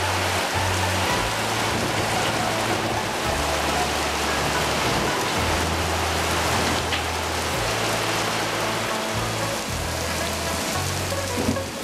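Heavy rain pouring down steadily on roofs, paving and trees.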